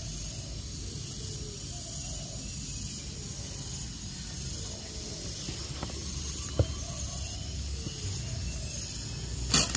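Soft rustling and crackling of dry cocopeat and a fibrous coconut root ball being handled and pressed into an enamel basin. There is a sharp click a little past halfway and a louder crackle just before the end.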